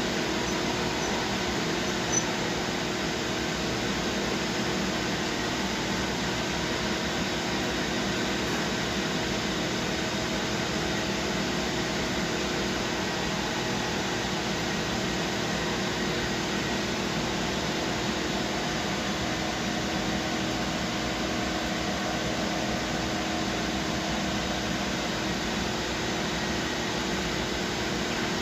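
CNC machining centre running, a steady hum and hiss with several steady tones held throughout, and a brief click about two seconds in.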